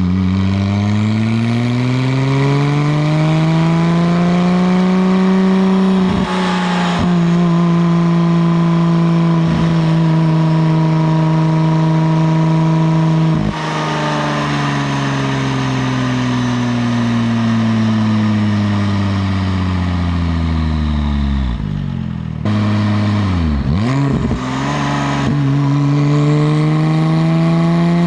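Porsche 996 Turbo's twin-turbo flat-six running through a valved high-flow catted exhaust and sport headers, on the move. Revs climb, hold, then fall away over several seconds. After a short break and a few quick rises and drops in pitch, the revs climb again near the end.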